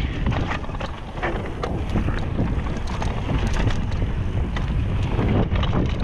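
Mountain bike descending a dry dirt trail: a steady low rumble of wind on the microphone and tyres rolling over dirt, broken by frequent small knocks and rattles from the bike and loose stones.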